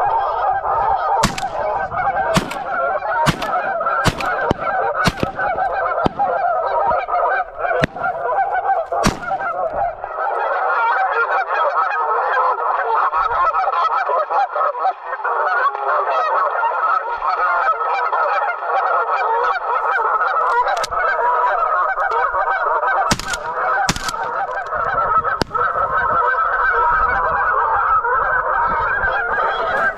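A large flock of geese honking continuously, many calls overlapping into a steady chorus. Several sharp clicks or knocks cut through it, most within the first ten seconds and two more near the end.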